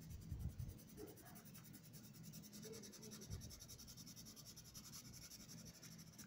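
Colored pencil shading on paper: rapid, even back-and-forth scratching strokes, faint, as the pencil fills in an area of colour. A couple of soft low thumps come near the start and again about three seconds in.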